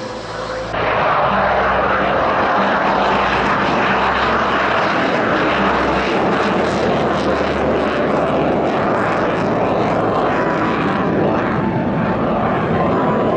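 Military aircraft engines running loud and steady: a broad rush of noise with a faint steady whine in the later part, cutting in abruptly under a second in.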